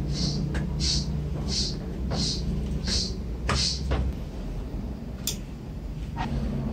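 Sheet-metal shield of a CRT monitor's circuit board being handled and fitted into place, giving several light metallic clicks and knocks over a steady low hum. A short high chirp repeats about every 0.7 s in the background and stops a little past halfway.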